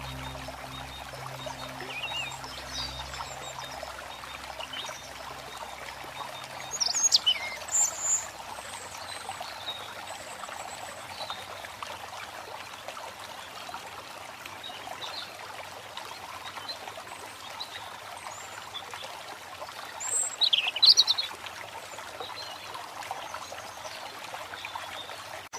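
Steady running water, like a stream, with birds chirping now and then; the louder calls come about seven seconds in and again near twenty-one seconds. Low music tones fade out in the first few seconds.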